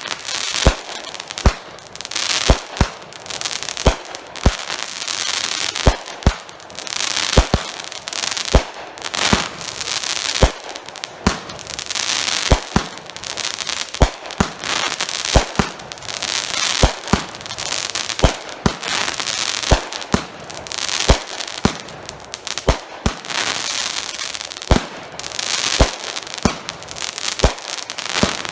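Cutting Edge Fireworks' Black Eye, a 36-shot 500-gram consumer cake, firing shot after shot: sharp reports about once or twice a second, each trailed by dense crackling from the crackling-tail and crackling-break effects.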